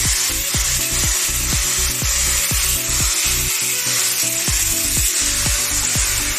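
Handheld angle grinder cutting expanded steel mesh, a continuous high hiss. Under it, background music with a steady beat.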